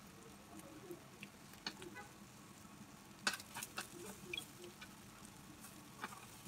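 Metal tongs clicking and scraping against a tabletop barbecue grill pan as meat and prawns are turned, a few sharp clinks, the loudest about three seconds in, over faint background chatter.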